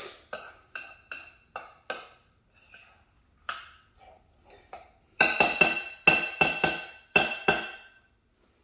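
Metal spoon stirring thick onion bhaji batter in a ceramic bowl, knocking against the side so the bowl rings briefly with each clink. In the last few seconds the clinks come quicker and louder, about eight in a row.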